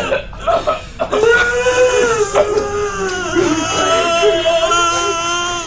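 A person crying in distress: broken sobs, then two long, high, wavering wails.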